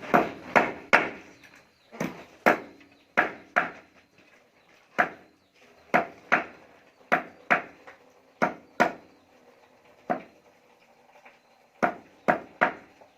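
Repeated hammer blows, about eighteen sharp strikes, mostly coming in pairs with short pauses between them.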